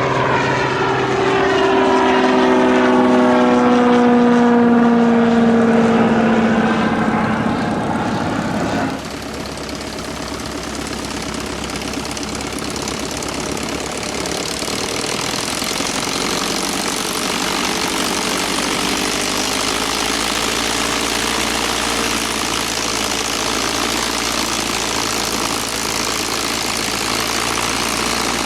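Cessna 185 Skywagon propeller plane passing close at full power, its engine tone falling steadily in pitch as it goes by. About nine seconds in, the sound switches abruptly to the steady, heavier running of a Curtiss SB2C Helldiver's radial engine, which grows slightly louder a few seconds later.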